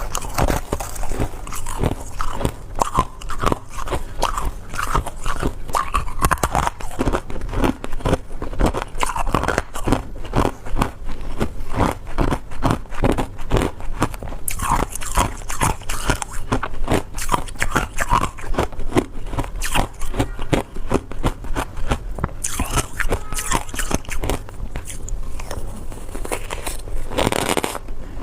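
A person biting and chewing ice, a rapid, irregular run of crunches without a break.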